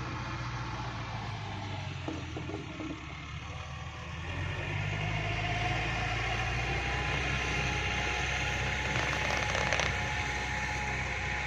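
Tractor engine running steadily under a wheat seed drill, picking up about four seconds in, with a faint mechanical whine and a brief rattle of clicks near the end.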